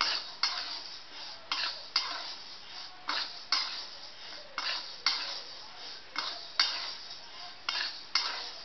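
Metal spatula stirring and scraping dry dal grains around a kadhai as they dry-roast. The strokes come mostly in pairs about once a second, each a sharp metal scrape followed by the rustling hiss of the grains sliding across the pan.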